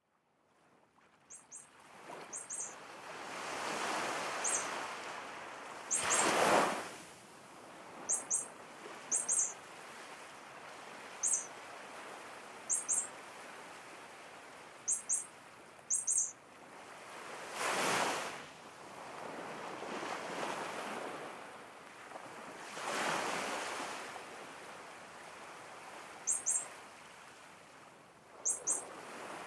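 Ocean surf washing in slow swells every few seconds, with short high bird chirps, often in pairs, scattered over it. It fades in from silence over the first couple of seconds.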